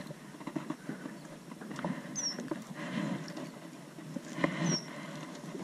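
Baitcasting reel being cranked and a small largemouth bass being landed by hand: soft, irregular clicks, patters and small splashes, with two brief high chirps, about two seconds in and near the end.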